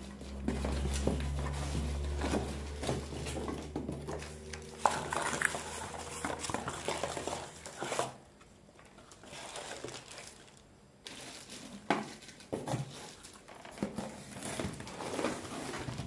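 Plastic packaging rustling and crinkling, with irregular clicks and knocks of plastic parts and cardboard being handled as items are lifted out of a box. A low steady hum underlies the first five seconds or so, then stops.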